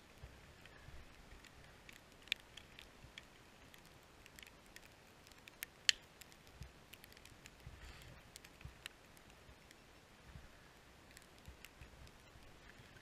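Faint, scattered clicks and light taps of a plastic ski helmet and goggles being handled, with two sharper clicks about two and six seconds in.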